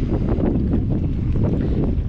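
Wind buffeting the microphone in a steady low rumble, with water slapping and splashing against a kayak hull on choppy sea.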